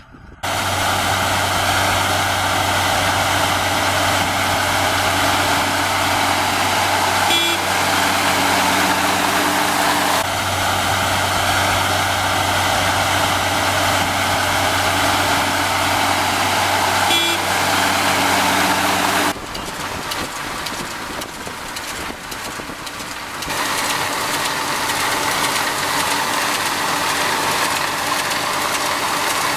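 Case tractor's diesel engine running steadily while it pulls an ROC RT1000 hay merger whose pickup is gathering cut wheat hay. The drone breaks off and changes abruptly several times, and is quieter and rougher for a few seconds past the middle.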